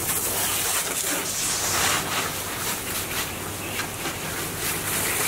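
Water from a garden hose spray nozzle hitting a personal watercraft's hull, a fluctuating hiss and spatter as the salt is rinsed off.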